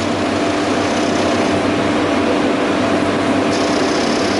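MIG welder's wire-feed motor running steadily, its drive wheels pulling welding wire through the machine. It makes a constant hum, and a faint higher whine joins about three and a half seconds in.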